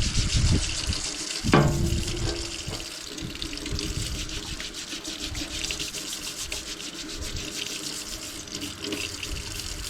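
Running water hissing steadily as it rinses rusty pipe wrenches after an Evaporust soak, with a single sharp knock about a second and a half in.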